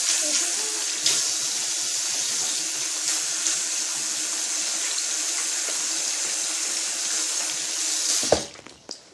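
Water running from a sink tap while hands are washed, a steady hiss that stops about eight seconds in with a knock as the tap is turned off.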